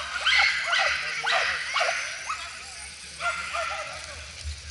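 Racing terriers yipping and barking in a rapid series of short, high calls, a few a second, easing off in the second half.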